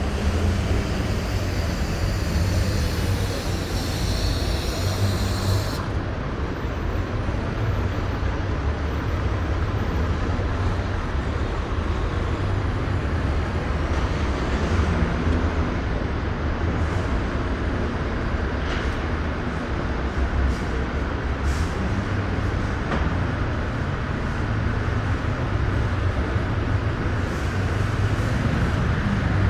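Road traffic at a city roundabout: cars, trucks and buses running past with a steady deep rumble. A high hiss cuts off suddenly about six seconds in.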